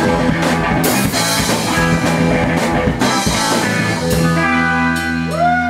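Live punk rock band of electric guitars and drums playing loudly, then holding one ringing chord from about four seconds in. Near the end, sliding tones rise and fall over the held chord.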